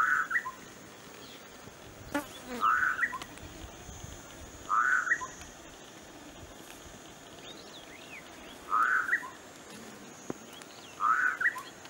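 An animal's short call, rising slightly, repeated five times at intervals of two to four seconds, over a steady faint high hiss, with a few faint high chirps and one or two sharp clicks.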